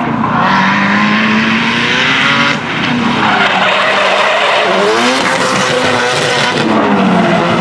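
Drift car sliding sideways under power, its engine revving with the pitch rising and falling as the throttle is worked, over loud tyre screech. There is a brief lift in the engine about two and a half seconds in before it pulls again.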